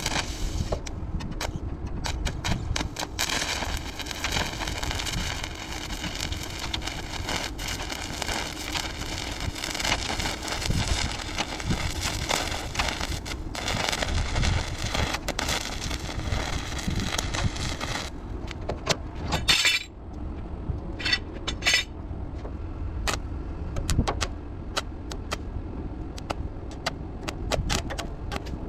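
Welding arc crackling steadily on sheet steel as a patch plate is welded onto a truck fender. After about 18 seconds the crackle gives way to a few short bursts.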